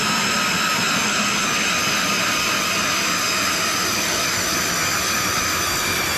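StrikeMaster 24V battery-powered ice auger boring through lake ice: a steady electric motor whine over the grinding of the blades, its pitch easing down slightly as the bit cuts deeper.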